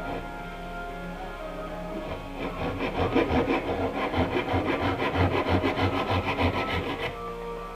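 Hand rasp stroking back and forth across a green wooden slingshot fork, shaping it, in rhythmic rough strokes about three a second that start about two seconds in and stop near the end. Background music with guitar plays underneath.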